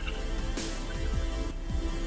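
Electronic background music with heavy bass and falling bass sweeps.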